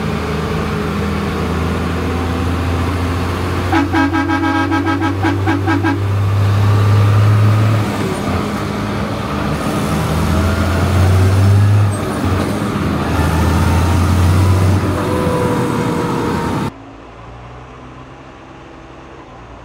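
Tractor engine running on the road, heard from inside the cab, with its low drone swelling and easing several times. About four seconds in, a horn sounds in a rapid, pulsing toot for about two seconds. Near the end the sound drops suddenly to a quieter engine hum.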